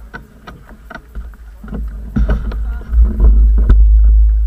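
Wind buffeting the microphone in a heavy low rumble that swells about three seconds in, with scattered clicks and knocks.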